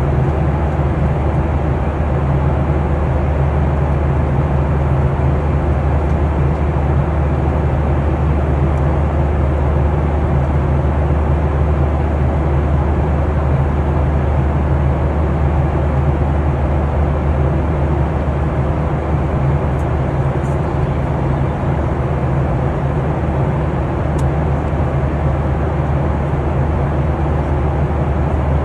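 Airliner cabin noise in flight: a steady, unchanging drone of engines and rushing air, heaviest in the low end with a deep hum.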